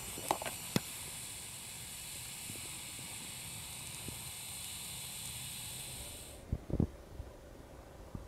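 Small stick fire just catching, hissing steadily with a few sharp crackles in the first second. The hiss cuts off abruptly a little over six seconds in, and a few dull knocks follow.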